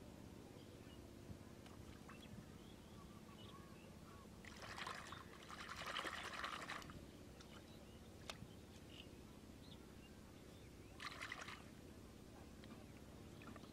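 A hand sloshing and scooping in a shallow muddy puddle for about two seconds, followed later by a brief splash and trickle as water runs off the raised hand.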